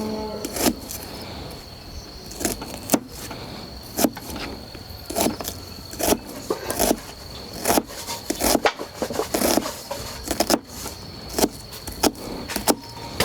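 Irregular sharp knocks and clicks, roughly one or two a second, over a steady high insect trill.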